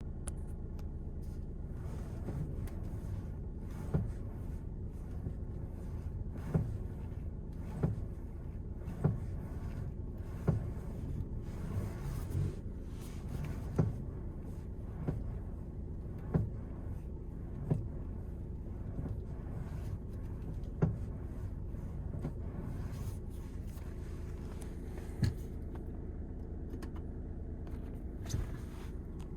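Power steering of a 2020 VW Tiguan Mk2 popping: about a dozen short, sharp pops, irregularly spaced every one to three seconds, over a steady low vehicle rumble. The popping is the sign of a faulty power steering unit, which the dealership replaced under warranty.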